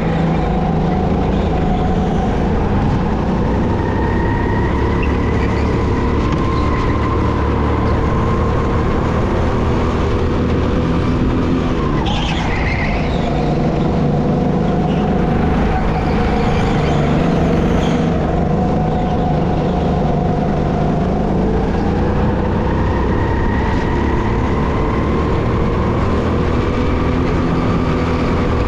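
The 200cc four-stroke engine of an SR5 rental kart, heard onboard. It revs up along the straights and drops off into the corners, over and over. A brief high squeal comes about twelve seconds in as the revs drop.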